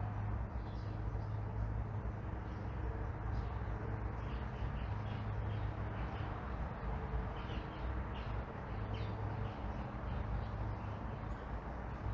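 Steady low rumble of distant road traffic, with small birds chirping in short calls throughout.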